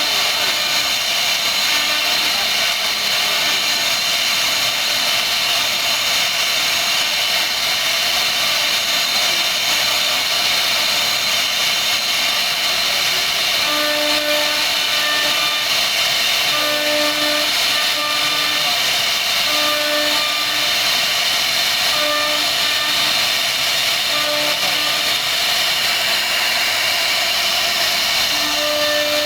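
CNC router carving a wooden panel: the spindle runs with a steady high whine over a loud hiss. From about halfway a lower hum keeps cutting in and out.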